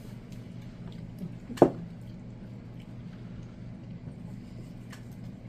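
Faint eating and handling sounds at a table over a steady low hum, with one sharp knock about a second and a half in.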